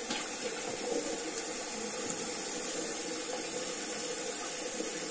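Tap water running steadily into a sink, a continuous hiss, while the face is wetted by hand for a wet shave.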